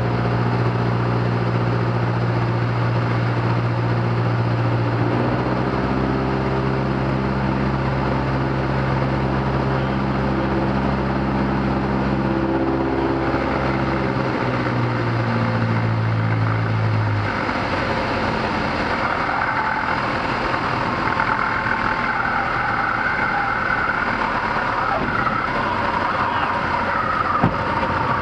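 Single-engine light airplane's engine and propeller running, heard from the cockpit on final approach; the engine note steps down in pitch twice as power is pulled back and then drops out, leaving the rush of airflow. A short thump near the end as the wheels touch down on the runway.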